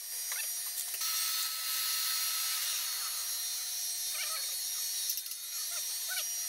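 Steady workshop hiss with a few light metallic clicks near the start and about a second in, as valve collets are set into the valve spring retainers of an Opel Omega 2.0 cylinder head. Faint short squeaks come in later.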